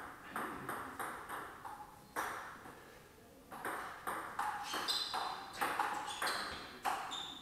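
Table tennis ball knocking off paddles and the table during a rally: sharp clicks at a quick, uneven pace, with a pause of about a second partway through.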